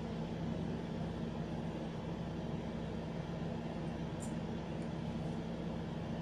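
Steady low machine hum, like a kitchen fan or appliance running, with one faint tick about four seconds in.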